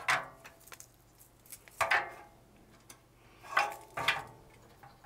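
Clicks, knocks and rattles of plastic wire connectors and cables being pulled apart and handled inside a disk drive's metal chassis: a handful of sharp clicks a second or two apart.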